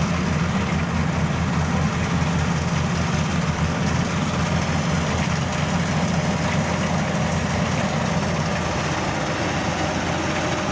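Diesel engine of a Kubota DC105 combine harvester running steadily with a deep drone.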